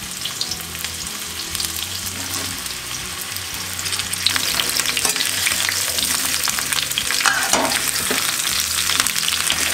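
Raw mango slices frying in hot oil in a kadhai, sizzling and crackling as they are stirred; the sizzle gets louder about four seconds in.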